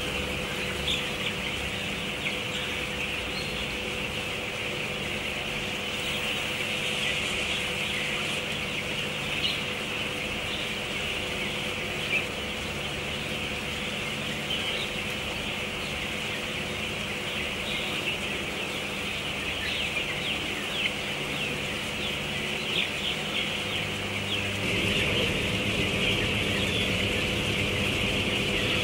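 A large flock of five-week-old broiler chickens cheeping in a dense, continuous chatter of many overlapping short chirps, over a steady hum.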